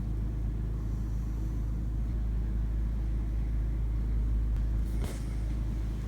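A steady low rumble, with one brief soft knock about five seconds in.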